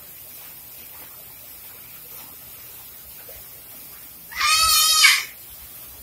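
A parrot's single loud call, a little under a second long, about four seconds in, its pitch wavering slightly.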